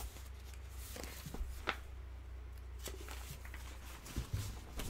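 Quiet microphone room tone with a steady low hum and a few faint, short clicks scattered through it.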